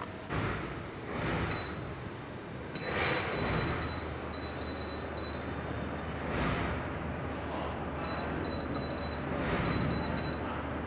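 Runs of short, high electronic beeps, several a second, in two main bursts, with a few sharp clicks, over steady background noise that swells a few times.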